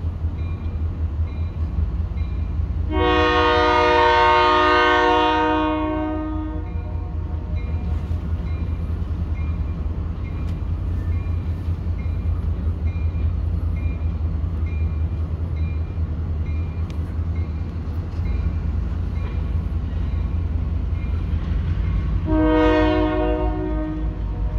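Locomotive horn sounding a long chord blast a few seconds in and a shorter blast near the end, over the train's steady low rumble as it approaches along a street track. A faint ding repeats at an even pace throughout.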